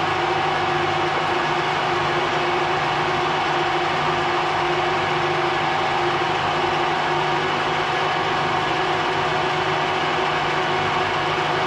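Metalworking machine tool running steadily: a constant motor and gear hum with a few steady tones over an even hiss.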